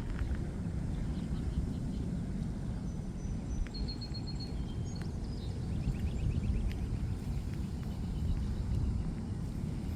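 A steady low rumble of outdoor ambience, with small birds chirping over it: a few short high whistled calls, then a quick run of repeated notes around the middle.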